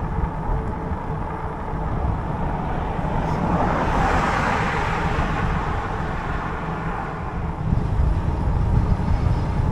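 A car passing close by, its noise swelling and fading about four seconds in. Under it runs a steady low rumble of wind and road noise from riding an e-bike.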